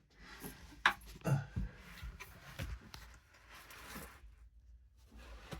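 Faint scattered knocks, clicks and rustling of someone shifting about and handling parts, with a faint steady low hum underneath.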